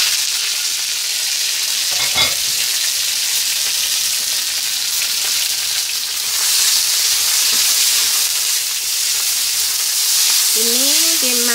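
Sliced red and green bell peppers and celery stalks sizzling steadily in hot oil and garlic in a wok, stirred with a spatula, with one sharp clack about two seconds in.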